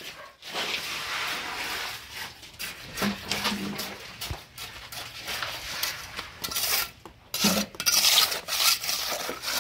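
Hand trowel scraping and smoothing wet concrete on freshly poured stair steps, in repeated irregular rasping strokes.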